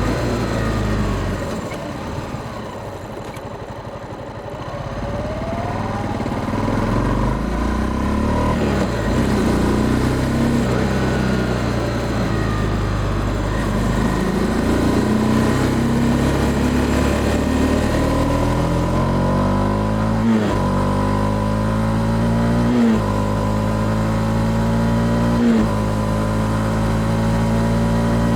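Honda CB300F Twister single-cylinder engine running under way. It eases off early on, then pulls again, revving up and shifting up three times near the end, each shift a quick drop in revs.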